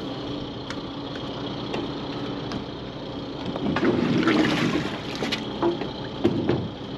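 An engine running steadily under a burst of clunks, knocks and scraping about halfway through and again near the end, as a stuck rudder is worked loose by hand.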